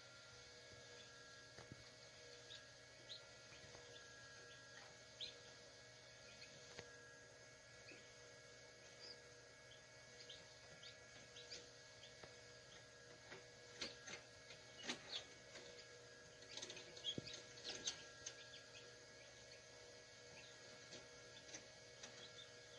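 Newly hatched chicks peeping faintly inside an egg incubator, over the incubator's steady hum. About two-thirds of the way in the peeps grow busier, mixed with a few sharp clicks.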